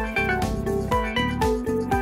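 Background music with a steady beat and a stepping melody of clear pitched notes.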